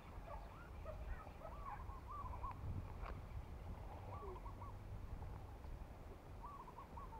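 Birds calling in short wavering, warbling phrases several times over, with a steady low rumble underneath.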